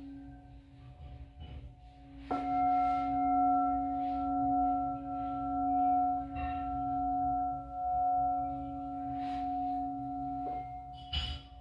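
Singing bowls ringing with a sustained, layered tone. One bowl is struck about two seconds in, and its ring swells and fades in slow waves, with a short knock near the end.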